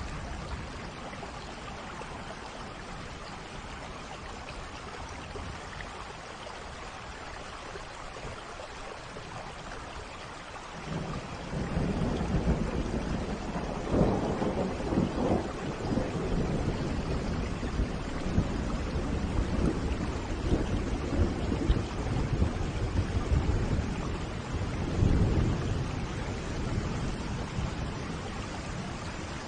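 Rain falling steadily, joined about eleven seconds in by heavier rain and rolling thunder, with several louder rumbles.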